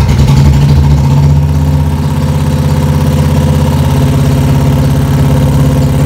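Royal Enfield Bullet's single-cylinder engine running steadily, a little louder for the first second and a half.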